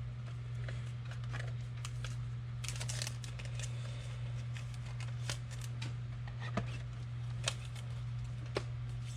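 Trading cards being handled and sorted by hand: light scattered clicks and rustles of card stock, over a steady low hum.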